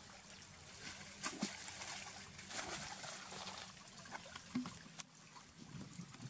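Macaques splashing and paddling in river water: irregular sloshing with a few sharper splashes, the loudest about a second in, over a faint steady low hum.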